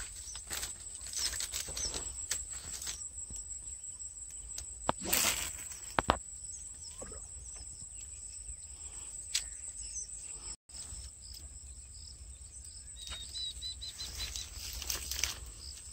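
Outdoor ambience: a steady high-pitched insect drone with wind rumbling on the microphone, a few loud rustles and sharp knocks about five to six seconds in, a brief dropout about two-thirds in, and a short run of high chirps near the end.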